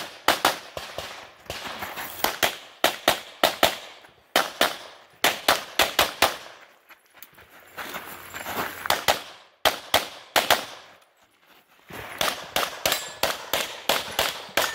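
Semi-automatic competition pistol with a red-dot optic fired rapidly in quick strings of shots, with brief pauses between strings as the shooter moves and reloads during a timed stage run.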